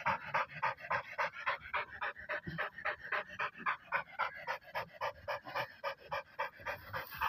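Pit bull panting fast and steadily, about five quick breaths a second.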